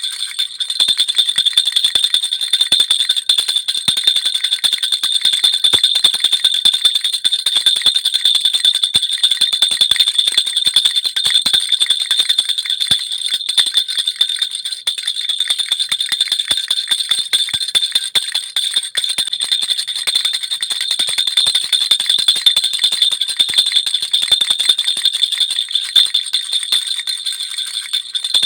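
Baby rattle (jhunjhuna) with small jingle bells, shaken rapidly and without a break, making a constant bright jingling.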